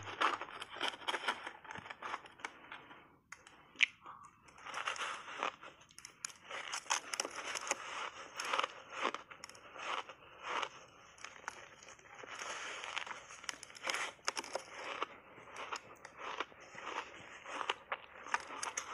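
Crunchy refrozen ice blocks coated in milk powder being bitten and chewed close to a clip-on microphone: a dense run of crisp crunches and crackles, with one sharp, loud crack about four seconds in.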